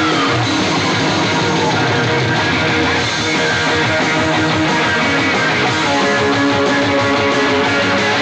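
Recorded rock song with electric guitar, played loud over a sound system for an air band to mime to; a held note slides down in pitch near the start.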